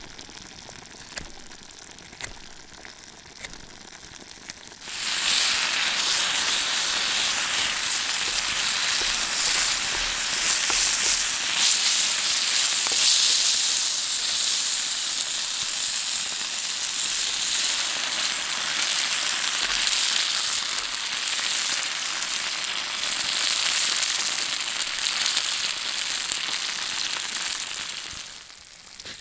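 Food frying in a hot pan: a loud sizzle that starts suddenly about five seconds in, holds steady, and cuts off near the end.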